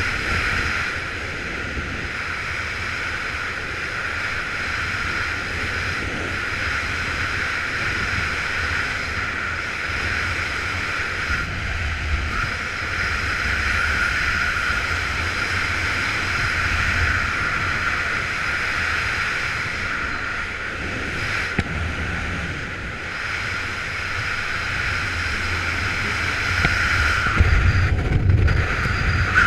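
Steady wind rushing over a helmet-mounted camera's microphone in parachute canopy flight, a hiss over a low buffeting rumble. It grows louder and gustier near the end.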